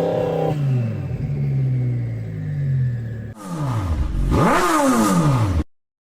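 Twin-turbo Audi R8's V10 engine revving and accelerating, its pitch falling and climbing again. After an abrupt change about a third of the way in, the engine drops and rises in pitch twice more, then the sound cuts off suddenly near the end.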